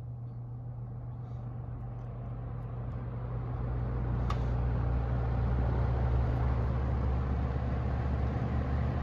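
Penncrest 200 20-inch box fan (made by Lakewood) switched back on: its motor hums steadily while the blade spins up, the rush of air building over the first few seconds and then holding steady. A single sharp click about four seconds in.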